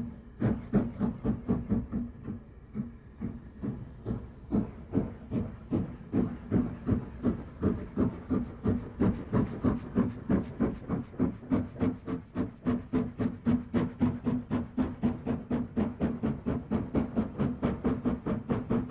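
BR Standard Class 4 steam locomotive working hard as it pulls away with a train: sharp chimney exhaust beats that quicken from about three a second to about five a second, over a steady low hum.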